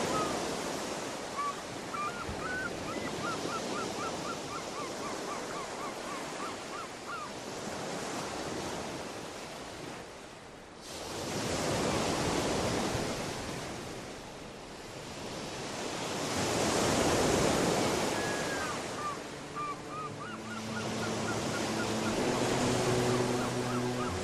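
Ocean surf breaking in slow swells that rise and fall every few seconds. Birds call twice in quick runs of short chirps. Near the end, several low steady tones come in.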